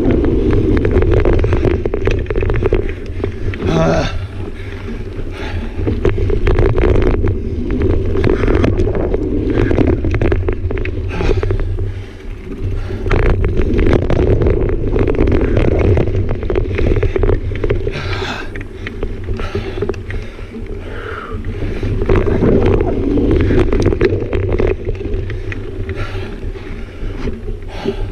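Mountain bike riding fast down a dirt singletrack: wind buffeting the camera microphone and tyres rolling over dirt, with many small clicks and rattles from the bike over bumps, growing louder and softer as the speed changes.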